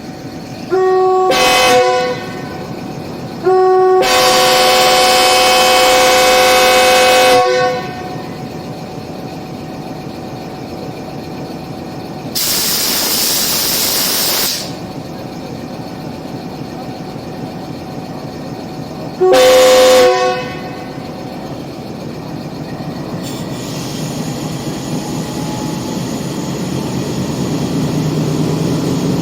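A GEU20 diesel-electric locomotive's air horn sounding three times: a short blast, a long blast of about four seconds, then another short blast, each stepping up in pitch as it starts. Between them comes a hiss of about two seconds, and the rumble of the train grows louder near the end.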